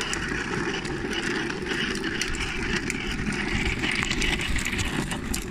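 Hard plastic wheels of a toddler's ride-on toy car rolling over brick paving: a steady rumbling rattle with many small clicks.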